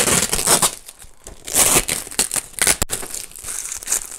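Thin plastic mailer bag crinkling as it is pulled and torn open by hand, in three loud rustling bursts.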